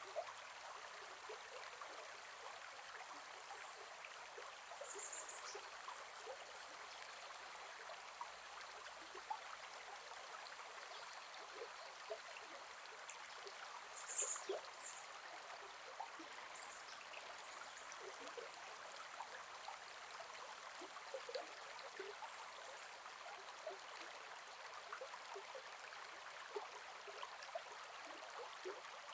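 Gentle forest river flowing, a steady soft rush of water with small plinks and gurgles throughout. A few brief high-pitched chirps come about five and fourteen seconds in.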